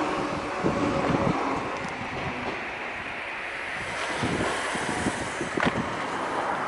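A one-car JR 119 series DC electric train running past on the track, a steady rumble with a few sharp wheel clicks over the rail joints.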